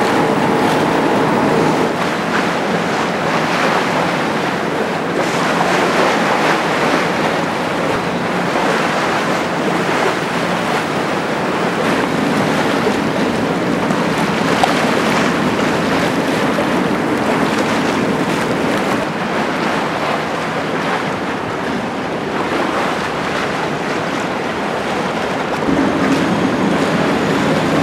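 Wind buffeting the microphone and choppy water rushing along the hull of a passenger ferry under way, over the low, steady hum of the ferry's engine.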